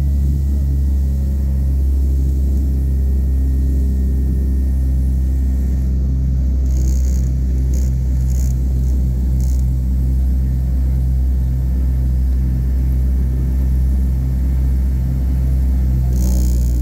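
A Douglas DC-3's twin radial piston engines heard from inside the cabin at climb power just after takeoff: a loud, steady low drone with a regular throb about twice a second.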